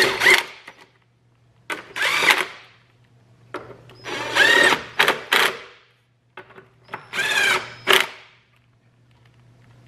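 Hitachi 18-volt cordless driver tightening the 10 mm bolts that hold an engine control module to its mount. The motor runs four times, each run a second or two long, with its pitch rising and falling and short pauses between.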